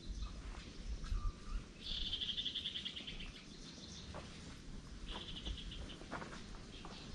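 Outdoor wildlife ambience: a rapid pulsed, high trill, once for about a second and a half and again more briefly past the middle, with a few faint cracks in between.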